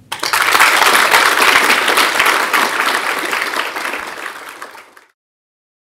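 Audience applauding, starting the moment the speech ends, strongest in the first two seconds and then tapering off, before being cut off suddenly about five seconds in.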